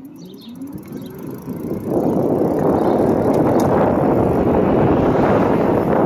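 Wind buffeting the microphone of a moving e-bike: it comes on suddenly about two seconds in and stays loud and steady. Before that, a few faint rising whines as the bike picks up speed.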